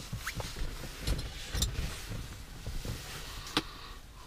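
Scattered light clicks and taps of hands handling the plastic instrument cluster and its circuit board, over a low steady rumble.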